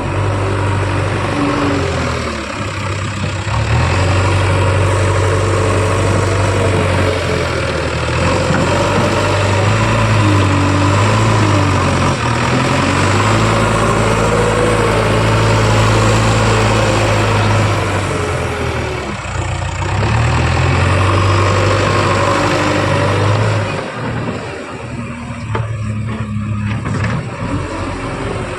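Heavy diesel engine of earthmoving and farm machinery running under varying revs: a steady low drone that steps up and down in pitch, with a wavering higher tone over it. It eases off briefly near the end.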